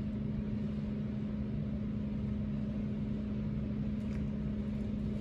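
A steady low machine hum with one constant tone, unchanging throughout.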